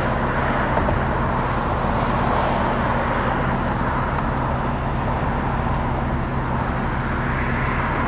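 Steady road traffic noise with a constant low engine hum.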